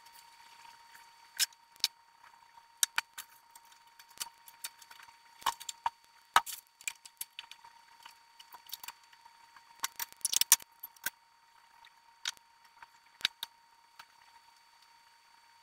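Sped-up handling sounds of a person working with fabric at a sewing station: scattered sharp clicks, ticks and rattles at irregular intervals, thickest about ten seconds in, over a steady thin high hum.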